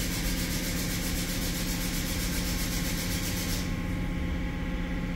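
Steady running hum of machinery, like an engine idling, with a high hiss that cuts off about three and a half seconds in.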